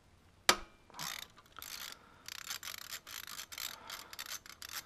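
Hand ratchet with a socket on an extension clicking in quick runs as small mounting bolts are backed out. There is one sharp click about half a second in.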